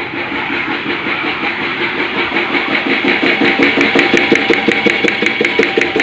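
Single-piston car-wash pressure pump running on its electric motor. It makes a fast, even pulsing knock that grows clearer about halfway through, over the hiss of the water jet spraying from the nozzle.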